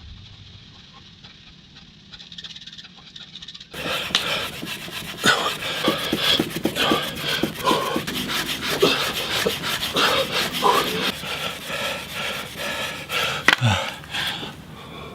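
A wooden stick driven rapidly up and down a groove in a dry wooden base, making fire by friction with the fire plow method, with a man panting hard from the effort. It starts suddenly about four seconds in and dies away shortly before the end.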